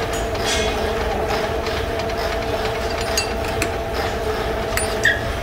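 Steady hum of running workshop machinery, with a few sharp metal clinks as a steel workpiece is fitted and clamped into a stopped lathe's chuck.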